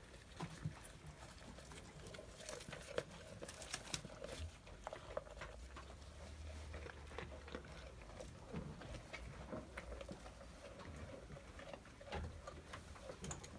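Goat eating from an enamel bowl: irregular soft munching with scattered small clicks and patter as it chews and noses the food.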